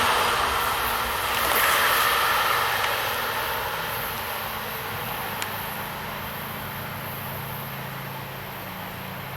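Vehicle noise fading steadily away over several seconds, leaving a low, steady engine hum.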